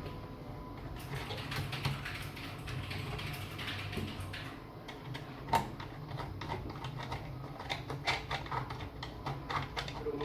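Typing on the AlphaSmart Neo2's keyboard: a quick, dense run of key clicks that starts about a second in, over a steady low hum.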